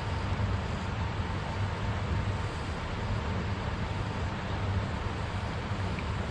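Steady rushing noise of a flowing river, with wind rumbling on the microphone.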